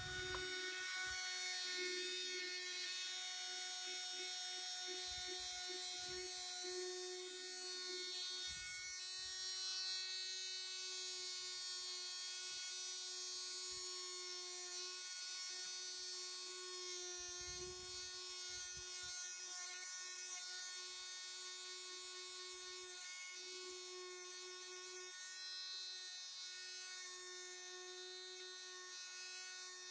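Electric orbital sander running steadily with 100-grit sandpaper against a wooden model-ship hull: a constant motor whine over the hiss of the paper on the wood.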